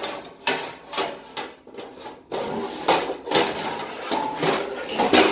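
Metal pans and cookware clanking and knocking together as they are handled, about ten separate knocks with a short metallic ring after each.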